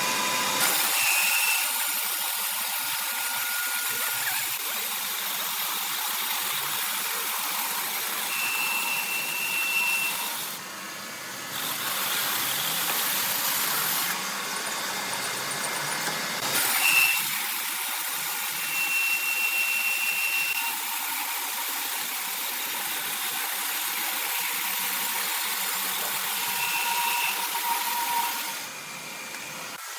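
Sawmill saw cutting wood: a steady hissing machine noise with a few short, high whining tones. The noise drops off briefly about ten seconds in and again near the end.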